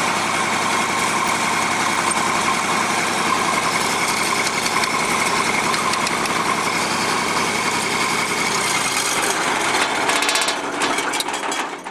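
Diesel engine of a Lincoln SA-250 welder-generator running steadily, then shut off near the end, winding down through a few last separate strokes before it stops.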